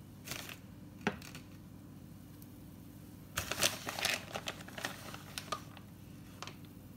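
Plastic bag of shredded cheese crinkling as it is gripped and handled, in a cluster of crackles about three and a half seconds in that lasts around two seconds, with one more crinkle near the end. A short rustle and a light click come in the first second.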